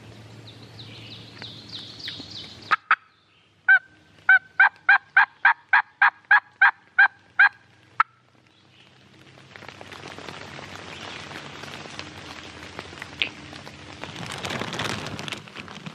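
Hunter's turkey mouth call (diaphragm) blown as a hen-turkey yelp series: a couple of lead-in notes, then about a dozen evenly spaced yelps, roughly three to four a second. A steady rushing hiss follows from a little past halfway and swells near the end.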